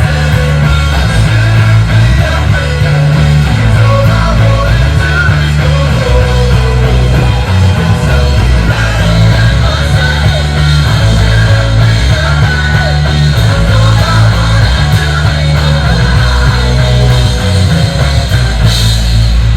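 Loud rock music: a band with drum kit and a moving bass line, with some singing, cutting off abruptly at the end.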